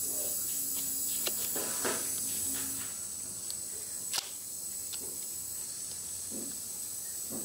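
Scissors cutting through the thin plastic of a chair shell moulded onto a cement pot: a few sharp snips and clicks, the loudest about four seconds in, over a steady background hiss.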